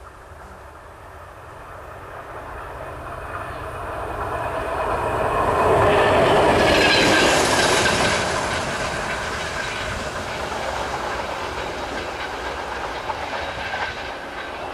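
MÁV class M62 diesel locomotive passing: its two-stroke V12 diesel engine and wheels on the rails grow louder to a peak about six to eight seconds in, then fade slowly as it runs away.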